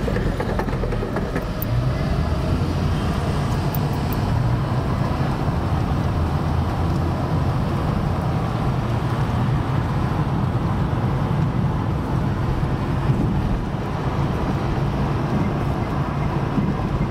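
Car interior noise while driving: a steady low rumble of engine and tyres on the road, heard from inside the cabin.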